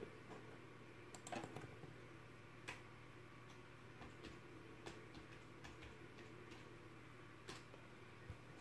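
Faint, scattered clicks of typing on a computer keyboard, over a low steady hum.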